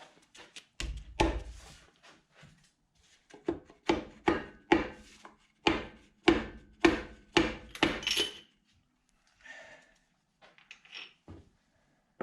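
A string of sharp metallic taps on the workbench: a tool being struck to tap stuck bearing shells out of the engine's connecting rod. A heavy knock comes about a second in, then a quick run of about a dozen taps, roughly two a second, before a few fainter knocks and scrapes near the end.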